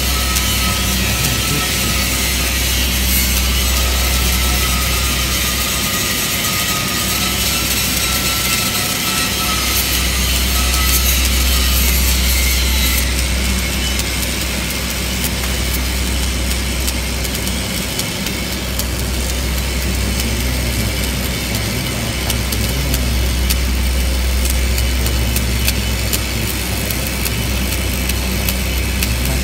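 Stick (shielded metal arc) welding: the electrode's arc crackles and sizzles steadily as a bead is run along a steel corner joint. A low hum sits underneath and briefly drops out a few times.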